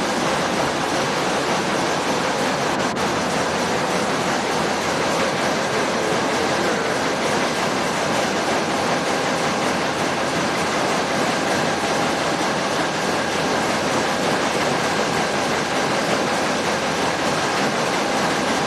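Steady din of factory machinery running: a loud, even roar with a faint constant whine in it and no separate knocks or pauses.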